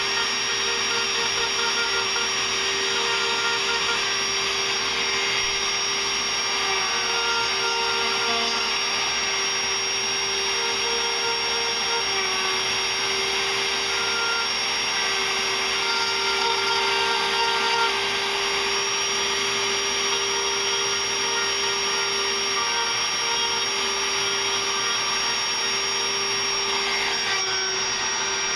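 Small high-speed power tool running steadily while cleaning tearaway out of CNC-carved letters, its pitch shifting slightly as it bears on the wood.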